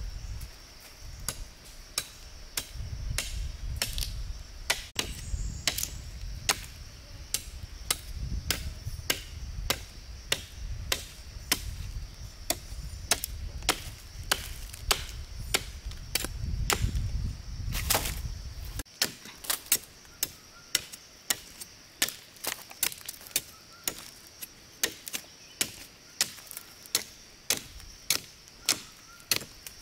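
Wood being chopped in steady strokes, a sharp crack about twice a second, over a low rumble that cuts off about nineteen seconds in.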